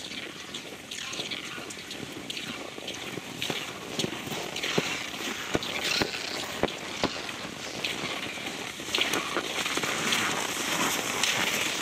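Cross-country skis swishing and scraping over packed, frozen snow, with the clicks of ski poles planting, as skiers pass; it grows louder near the end as one skier comes close.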